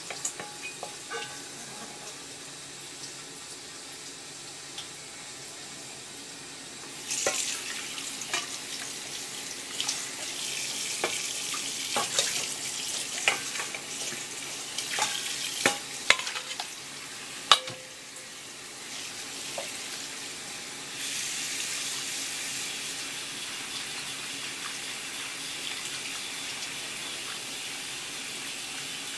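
Tap water running from a hose into a stainless steel bowl while shelled clam meat is rinsed by hand, with sharp clinks and knocks of the metal bowl in the middle part. From about two-thirds of the way through, a steady rush of water filling the bowl.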